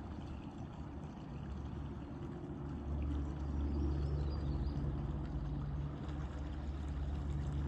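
A boat's motor running at low speed with a steady low hum, growing louder about three seconds in, over the sound of lapping, pouring water.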